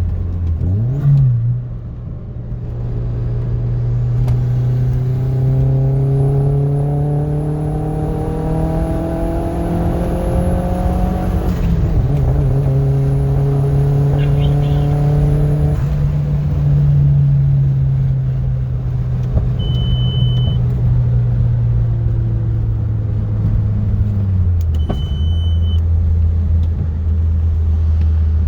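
Audi A4 B5 1.8T four-cylinder turbo engine, K04 turbo and custom tune, pulling hard with its pitch rising through one gear, a brief break, then rising again through the next. A thin high whine runs over both pulls. The engine then eases off, its pitch falling for several seconds before settling low. The owner says the engine has some misfiring.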